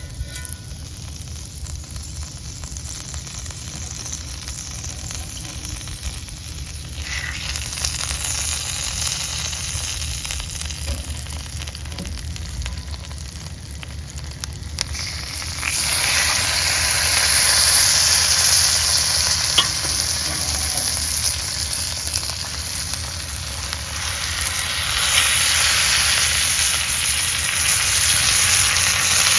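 Food frying and sizzling in a hot cast-iron pan, a steady hiss that grows louder about 7 seconds in and again about 16 seconds in.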